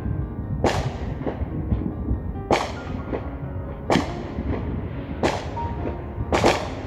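Fireworks going off outside the house: five sharp bangs a second or two apart, with fainter pops between them.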